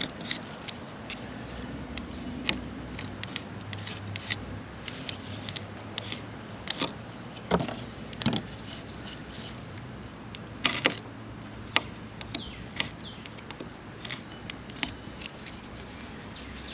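Irregular clicks, snaps and scrapes as matted carpet fibers and string are cut with a small blade and pulled off a vacuum cleaner's brush roller, with the roller's plastic and bristles knocking now and then. The sharpest snaps fall about 7.5, 8.3 and 11 seconds in.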